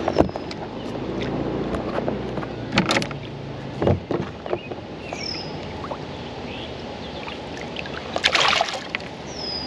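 Kayak on the water: water noise with scattered knocks and splashes, the largest about 8.5 seconds in. Two short high falling chirps sound about halfway through and again near the end.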